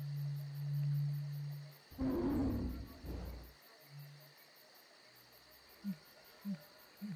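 A steady low drone, then a loud, deep animal-like roar about two seconds in that lasts about a second and a half, followed by a few short rising calls near the end.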